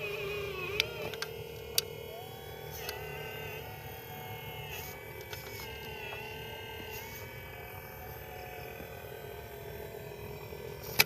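Small electric motors of a radio-controlled construction model whining steadily, their pitch sliding up and down as the load changes, with a few sharp clicks in the first three seconds.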